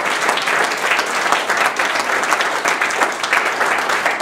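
Audience applauding: many people clapping, loud and steady.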